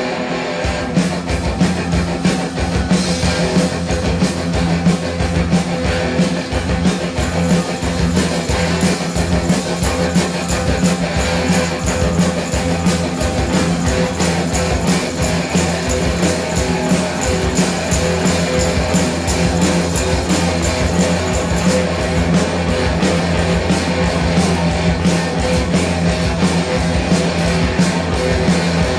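Loud guitar-driven rock music: strummed guitar and bass over a steady low held tone, dense and unbroken.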